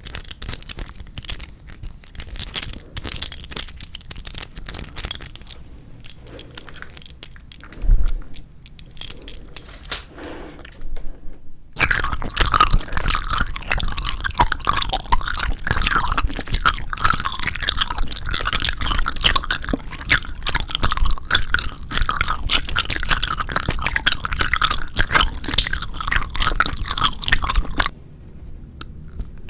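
Close-miked chewing of 4D jelly gummy candies, softer and scattered at first with a single low thump about eight seconds in. From about twelve seconds in comes dense, continuous wet crunching and chewing, which drops away shortly before the end.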